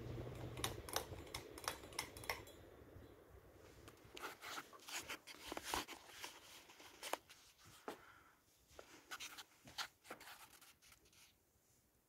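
Broan Alaska/Europa ceiling fan motor humming low, heard close up, fading out after about two and a half seconds. Scattered sharp clicks and scrapes come irregularly until near the end.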